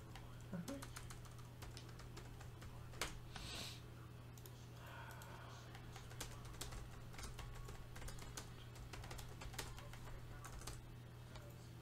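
Faint typing on a computer keyboard: irregular keystrokes, one sharper click about three seconds in, over a steady low hum.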